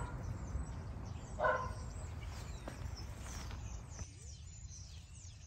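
A dog barking twice, once right at the start and again, louder, about a second and a half in. Birds chirp high over a steady low rumble.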